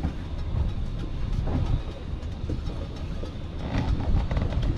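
Low, uneven rumble of a motorboat under way, its motor and hull on the water, with wind buffeting the microphone.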